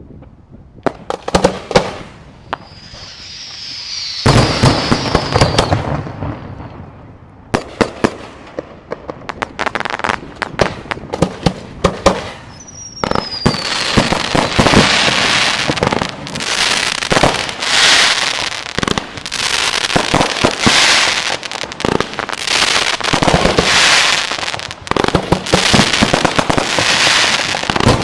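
Aerial fireworks display: sharp bangs of shells bursting, with a few whistles falling in pitch about three seconds in. From about halfway the bangs come thick and fast over dense continuous crackling.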